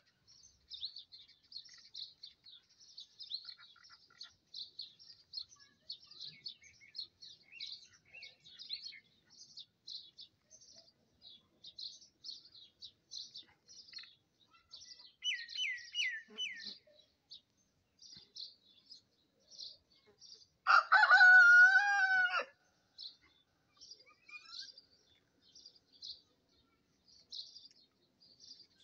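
A rooster crows once, a loud call of about two seconds, well over halfway through. Small birds chirp rapidly and high-pitched throughout, and a few seconds before the crow a bird gives four quick falling notes.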